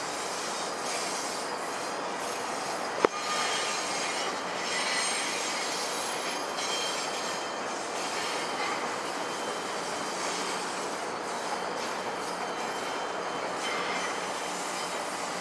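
Bilevel passenger coaches rolling slowly over station trackwork: a steady rumble of steel wheels on rail with faint, intermittent wheel squeal, and one sharp click about three seconds in.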